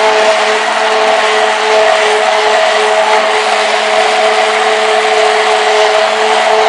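Electric stick blender running steadily in a plastic jug, blending lye solution into olive oil at the start of soap-making: a constant motor whine over the churning of the liquid.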